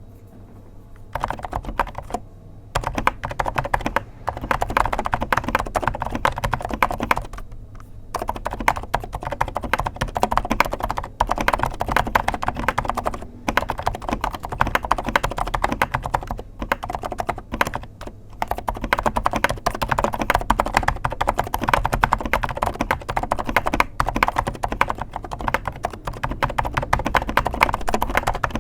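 Typing on a Genshin Impact Keqing mechanical keyboard: a fast, continuous clatter of keystrokes with a couple of brief pauses in the first eight seconds.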